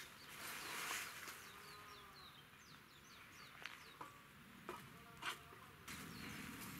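A few sharp metallic knocks as the steel poles of a hammock stand are handled and fitted together, the loudest about five seconds in. Faint birdsong of short downward-sliding chirps runs behind it.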